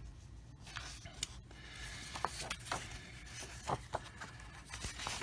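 Cardstock game cards being handled and slid over one another: soft, faint rustling with a few short taps and scrapes scattered through the middle.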